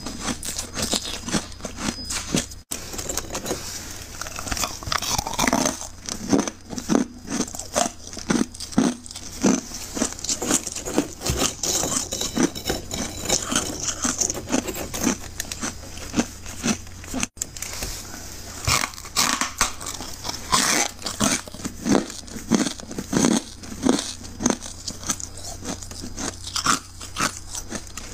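Thick, snowy freezer frost crunching as it is scraped and broken up by hand, a rapid series of short crunches one after another.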